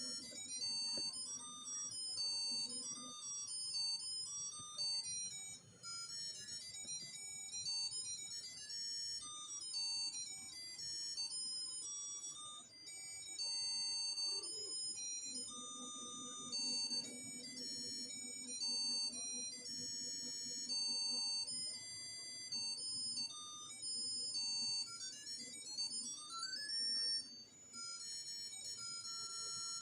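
Tinny electronic melody of short high beeping notes, like a cheap music chip or ringtone, with a few quick rising sweeps near the end. A low steady hum runs underneath, strongest in the second half.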